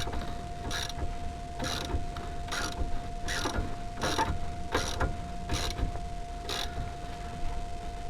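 Hand ratchet wrench winding in a rear brake mounting bolt, a short ratcheting stroke about every second, eight in a row.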